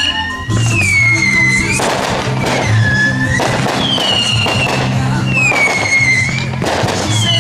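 Music playing for a fireworks display, with a melody that glides up and down over a steady low beat. Fireworks go off with sudden noisy bursts about two, three and a half, and six and a half seconds in.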